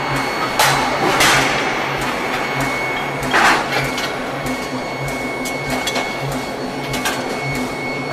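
Power hammer striking a red-hot steel ring on the anvil: two sharp blows about half a second apart, then one louder clang about three and a half seconds in. For the rest, the hammer runs without striking, a steady rhythmic low pulsing with a steady high tone and a few light clicks.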